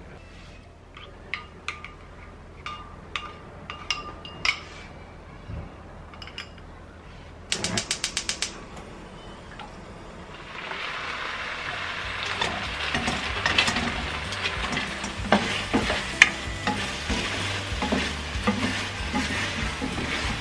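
A spoon clinking against a ceramic bowl as sauce is stirred, then a quick run of about eight clicks. From about ten seconds in, chilli seasoning sauce sizzles and bubbles in a hot wok, and a wooden spatula scrapes and taps the pan as fried dumplings are tossed in the sauce.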